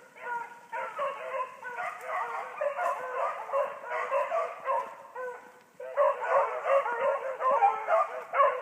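A pack of rabbit-hunting beagles baying and yipping, many voices overlapping. The baying breaks off briefly about five seconds in, then comes back louder.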